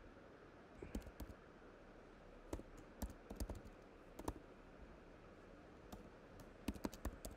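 Typing on a computer keyboard: sharp key clicks in short bursts with pauses between, as a class name is entered.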